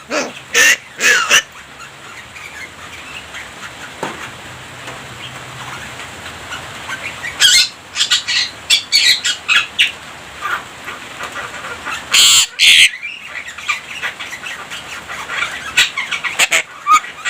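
Javan myna singing in clusters of harsh squawks and chattering calls, with a quieter pause of a few seconds after the first calls; the loudest pair of squawks comes about twelve seconds in.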